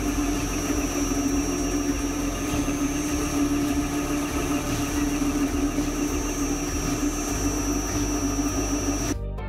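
Metal lathe running, turning a steel shaft between centres: a steady hum with a thin high whine over it, cutting off about nine seconds in.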